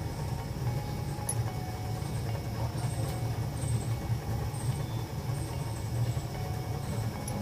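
Ginger milk tea boiling in a metal pan on a lit gas burner: a steady low rumble of flame and bubbling.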